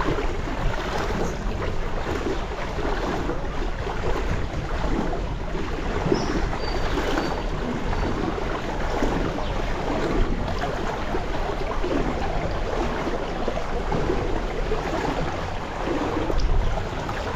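Floodwater sloshing and swishing in a rough, repeating rhythm about once a second.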